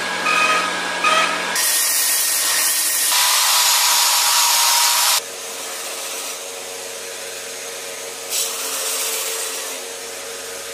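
Belt grinder running with its abrasive belt grinding a steel knife blade, a steady hiss over the machine's hum. The grinding is loudest in the first half and drops abruptly to a quieter steady run about five seconds in.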